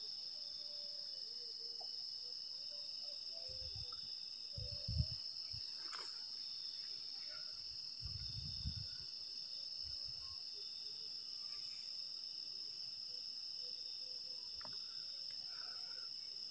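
Steady nighttime chorus of crickets and other insects, a continuous high-pitched drone. A few dull low thumps come about four to five seconds in and again around eight seconds, the first of them the loudest moment.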